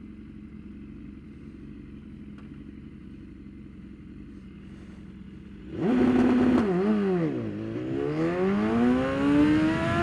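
BMW S1000RR inline-four superbike engine idling, then revving up sharply nearly six seconds in and holding its revs briefly for a launch-control start. The revs dip hard as the bike is let go and then climb steadily as it pulls away. It is a launch-control attempt that the rider says didn't work at all.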